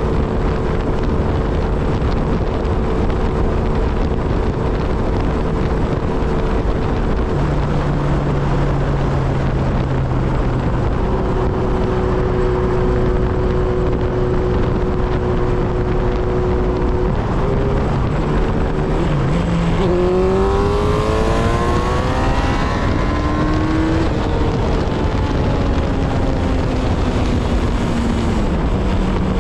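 Kawasaki Z1000 inline-four motorcycle engine running at highway speed under loud wind rush on the microphone. About two-thirds through, the engine revs up hard with a quickly rising pitch for a few seconds, then the pitch slowly falls as it eases off.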